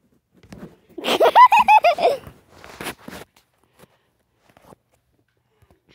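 A high-pitched giggle: a fast run of short rising-and-falling laughing pulses lasting about a second, followed by a few bursts of blanket rustling and phone handling.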